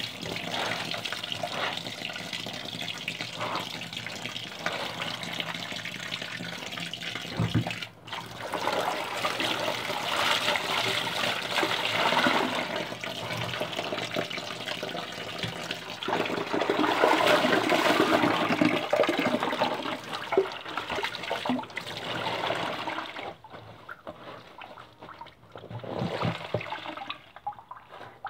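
Running water splashing while laundry is washed, a steady rush that swells in the middle and eases off about three-quarters of the way through, with one brief surge near the end.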